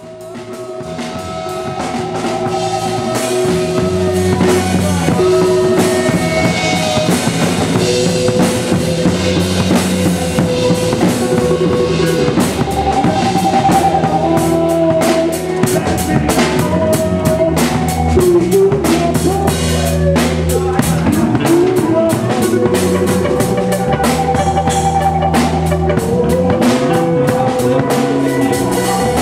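Live experimental improvised band music: electric guitars, bass and a drum kit, with held and sliding guitar notes over busy, steady drumming. It fades in over the first few seconds.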